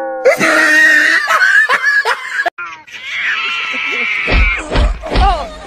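Two cats yowling at each other in a standoff: a long, wavering, high cry begins about halfway through, with a few low thumps near the end. Before it comes a high, squeaky, voice-like sound.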